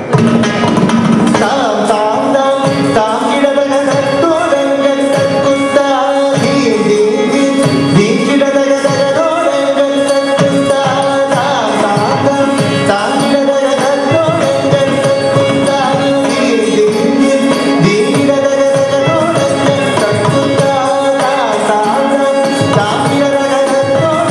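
South Indian classical-style dance music with drums and singing over a steady drone.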